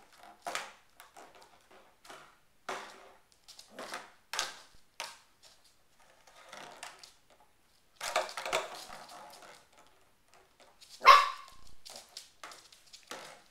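Pembroke Welsh Corgi puppy giving short barks and yips while it plays with an empty plastic water bottle. The bottle crinkles and clatters against the floor, with a burst of crinkling about eight seconds in. The loudest bark comes near the end.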